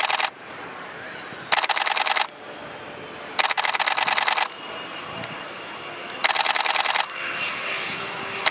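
Camera shutter firing in rapid high-speed bursts, four bursts of about half a second to a second each. Faint jet engine noise from the Super Hornets builds near the end.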